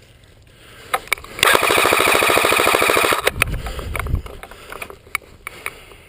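Airsoft electric rifle firing a full-auto burst, a rapid even rattle of about twenty shots a second lasting a little under two seconds. A couple of sharp clicks come before it, and a low rumble of handling follows.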